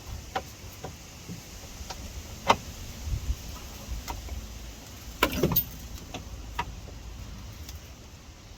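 Scattered metallic clicks and knocks as suspension arms and tools are handled while refitting a car's front suspension. The loudest is a sharp knock about two and a half seconds in, with a short cluster of clanks a little past halfway.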